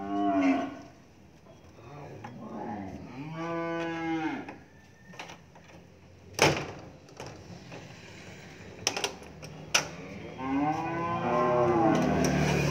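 Cattle in a livestock truck mooing three times: a short call at the start, another about three seconds in, and a longer one near the end. A few sharp knocks fall between the calls.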